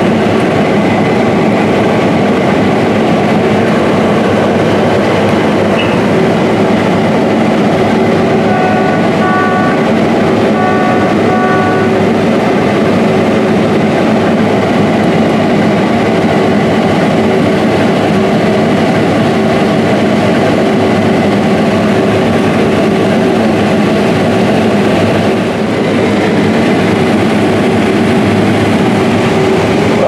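Case IH 9240 Axial-Flow combines harvesting corn with 16-row corn heads: a steady, dense drone of engine, threshing rotor and header, heard from inside a combine's cab. About four short electronic beeps sound between about nine and twelve seconds in.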